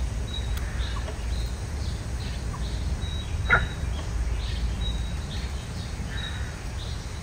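Chirping wildlife: short high chirps repeat about two a second over a steady low rumble, with one louder, sharper chirp about three and a half seconds in.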